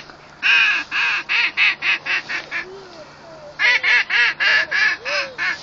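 Duck call blown in a mallard hen's descending hail call: two runs of about eight loud, quick quacks, each run starting loudest and tapering off.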